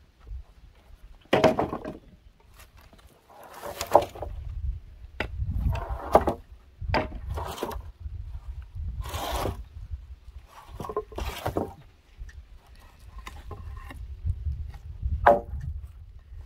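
Scrap wooden planks being lifted, dragged and stacked: irregular knocks and scrapes of wood on wood, about a dozen spread unevenly through the stretch, over a steady low rumble.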